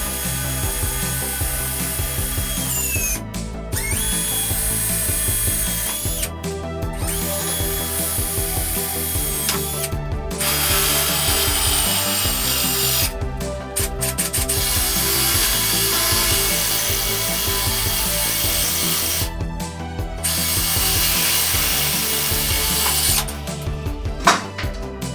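Loud power-tool noise with music playing alongside, breaking off sharply for a moment several times.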